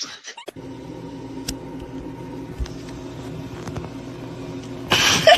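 Steady low machine hum with a few faint clicks, and a brief loud burst of sound near the end.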